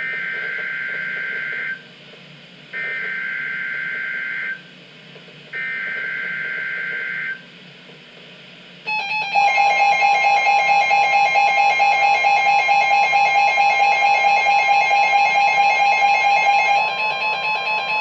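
NOAA Weather Radio Emergency Alert System SAME header: three identical screeching data bursts, each about two seconds long with short gaps, encoding the Tornado Warning (TOR) alert. About nine seconds in, the steady 1050 Hz warning alarm tone starts, and a loud pulsing alert alarm from the weather radio receivers sounds together with it until near the end.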